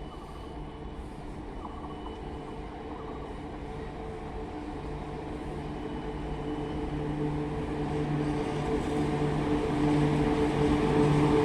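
WAG7 electric locomotive approaching: a steady, even hum that grows gradually louder, with the noise of the wheels on the rails rising near the end.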